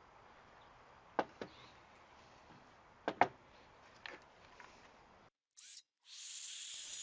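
Several sharp clicks and knocks from handling wood and tools over faint room tone, then, after a brief dropout, a power tool starts running with a steady high-pitched hissing buzz about a second before the end.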